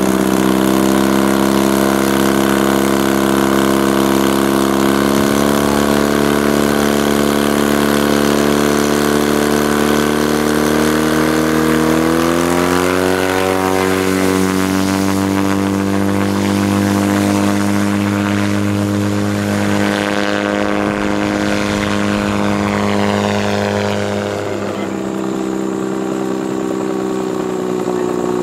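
Bensen gyrocopter's McCulloch two-stroke flat-four engine with custom mufflers, driving the pusher propeller. It runs steadily at first, climbs in pitch about twelve seconds in as the throttle opens for the takeoff run, then holds high as the gyroplane lifts off, easing slightly near the end.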